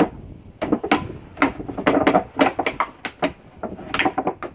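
A clear plastic bucket knocking and scraping on wooden deck boards as a dog noses and pushes it: a run of irregular knocks.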